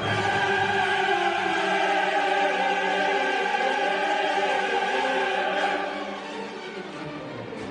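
Orchestral show music with long held, choir-like voices, softening about six seconds in.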